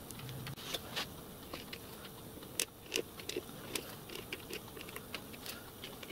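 Irregular light clicks and taps of hand tools and a pump oil can being handled against the metal change gears of a small lathe as the gears are oiled, with a few sharper clicks about one, two and a half and three seconds in.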